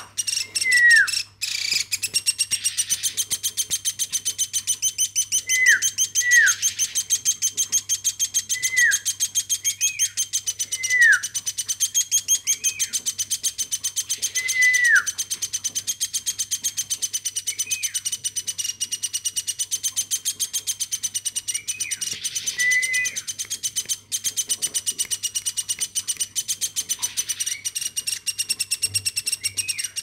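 Hand-raised woodpecker chick calling without pause: a high, fast-pulsing trill, with short downward-sliding call notes every second or two.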